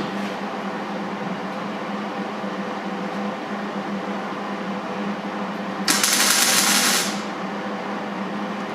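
MIG welder laying a single tack weld on sheet metal: a crackling hiss that lasts about a second, a little before the end, over a steady low hum.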